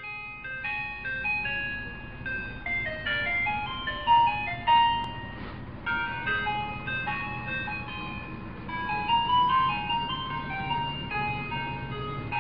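Background music: a simple melody of short, separate notes stepping up and down.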